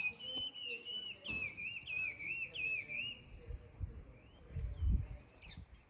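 A wild songbird singing a quick string of warbling, up-and-down whistled notes for about three seconds, then falling quiet. Low rumbles on the microphone come about four and five seconds in.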